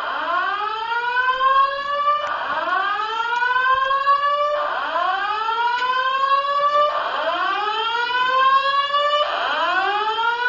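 Building fire alarm sounding an evacuation whoop: a loud tone that sweeps upward in pitch for a little over two seconds, then drops back and sweeps up again, about four times in succession.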